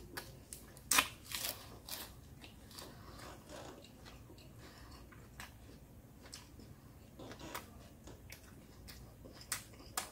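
Close-up crunching and chewing of fresh lettuce and cucumber: a cluster of sharp crunches about one to two seconds in, then quieter, sparser chewing, with a few more crunches near the end.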